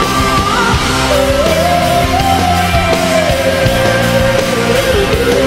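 Rock band music: a long held, sliding lead melody over a full band with drums and bass.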